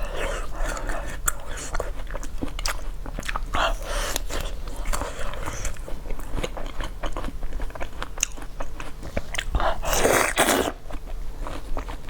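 Close-miked biting and chewing of crunchy food: a steady run of small crunches and mouth clicks, with one louder, longer crunch about ten seconds in.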